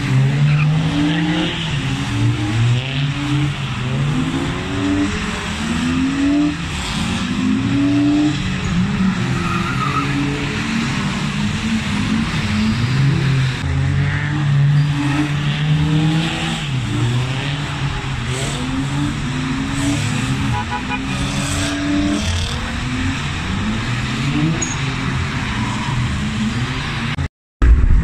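Drift cars' engines revving up and down over and over on the throttle, with tyres skidding underneath. The sound drops out briefly near the end.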